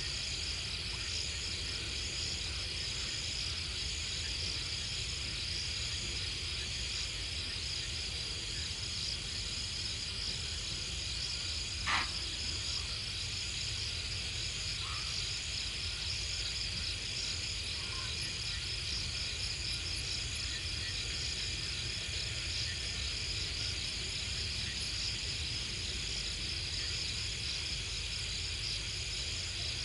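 Night chorus of crickets and other insects, a steady layered high-pitched trilling, with a single sharp click about halfway through.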